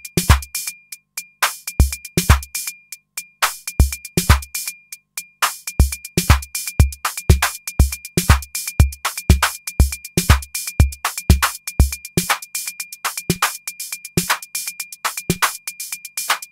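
Electronic drum-machine loop played from a MIDI step sequencer: a kick drum, steady at about two hits a second for a stretch, over running hi-hats, with a thin steady high tone underneath. About twelve seconds in the kick drops out as its track is muted, leaving the hi-hats.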